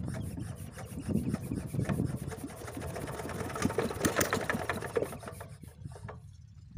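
Small diesel water-pump engine being hand-cranked: a fast rhythmic rasping clatter that stops about six seconds in, without the engine catching.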